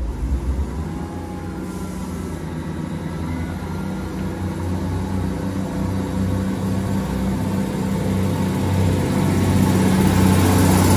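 Diesel engines of a Class 158 diesel multiple unit working under power as the train pulls away and accelerates toward and past the listener, a steady engine note that grows louder throughout.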